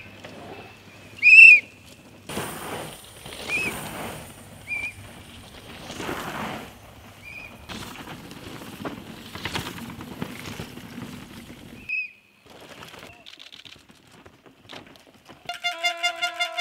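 Downhill mountain bikes rushing past over dirt and roots in a few separate passes, with short sharp whistle blasts from the trackside, the two loudest near the start. Near the end, a rapid ringing rattle, like a shaken cowbell, starts up.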